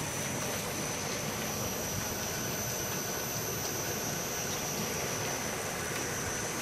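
BioStream BP60 fish pump running steadily: an even rushing noise with a thin, steady high whine on top.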